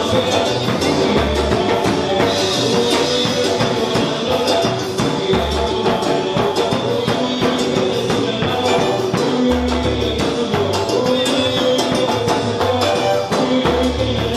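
A live band playing tierra caliente dance music: keyboard over percussion with a steady beat.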